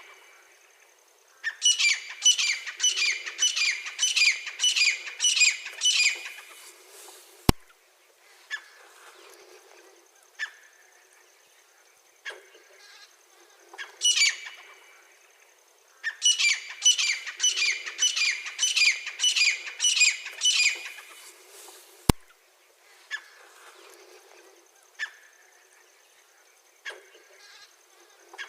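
Francolin (teetar) calling: a loud series of about nine repeated notes, roughly two a second, given twice, with single call notes in between. Two sharp clicks cut in, about 7.5 s and 22 s in.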